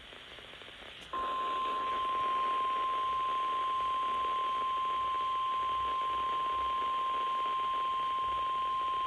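NOAA Weather Radio 1050 Hz warning alarm tone, heard through a weather radio receiver over a bed of radio hiss. It comes in about a second in as one steady high tone and holds without a break. It signals that a warning message is about to be broadcast.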